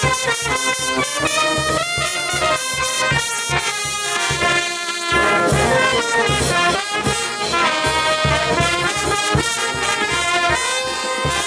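Banda orquesta brass band playing: trumpets and trombones carry a melody over a steady beat.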